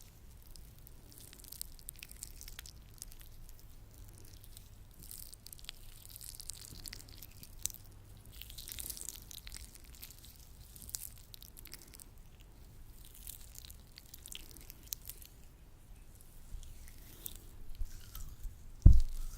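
Latex-gloved hands working sticky lotion close to the microphone: irregular wet, squishy crackles and smacks. A single loud low thump near the end.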